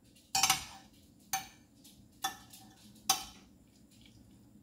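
Metal spoon clinking against a ceramic casserole dish as macaroni is stirred: four sharp clinks about a second apart.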